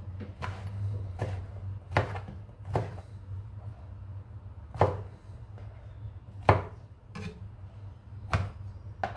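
Chef's knife chopping eggplant flesh on a plastic cutting board: separate knocks of the blade striking the board, irregularly spaced at about one a second, over a low steady hum.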